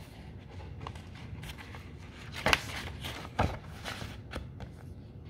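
A paperback book being handled and shut on a table: a few soft paper rustles and short knocks, the two loudest about two and a half and three and a half seconds in.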